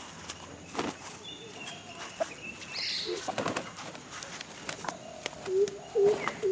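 Silkie chickens scuffling: wings flapping and scattered rustles and scratches. A few short low clucks come near the end.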